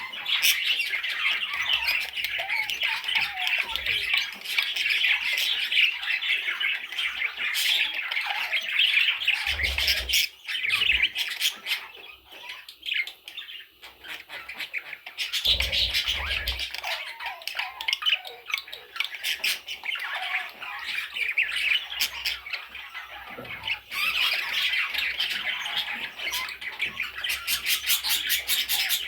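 Budgerigars chattering and squawking in a rapid, continuous warble, with a quieter lull in the middle. Two low thumps fall near the start and end of the lull.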